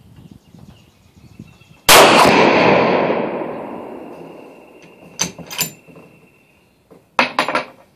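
A single rifle shot from a Weatherby Vanguard bolt-action chambered in .257 Weatherby Magnum, about two seconds in, echoing away over a few seconds. A few sharp clicks follow later.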